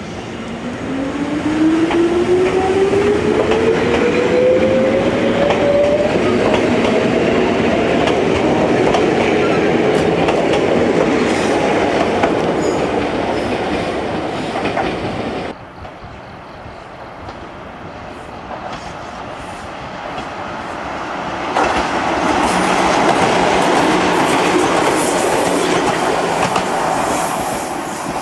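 Ichibata Electric Railway 3000-series electric train pulling out of a station, its traction motor whine rising steadily in pitch as it accelerates over rumbling wheels. About halfway the sound cuts to something quieter, then a train's running noise swells again as it comes close and passes.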